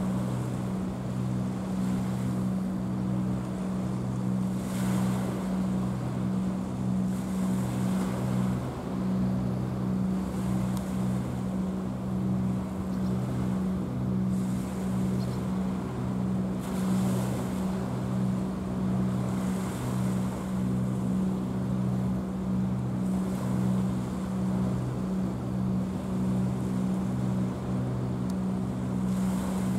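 Low, steady drone of a ship's diesel engine across the water, pulsing evenly about three times every two seconds. Over it, rushes of wave noise come every few seconds.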